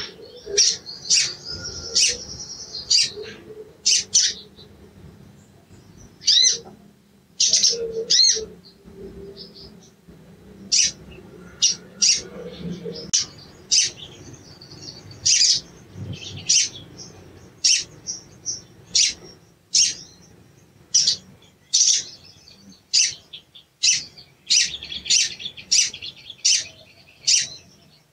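Male olive-backed sunbird giving short, sharp, high-pitched chirps roughly once a second, with stretches of quicker twittering between them.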